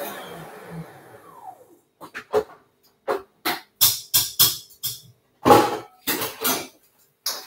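An electric mixer whisking egg whites winds down and stops within the first second or two, its pitch falling as it slows. Then a string of sharp, irregular clanks and knocks as the metal mixing bowl and whisk are handled.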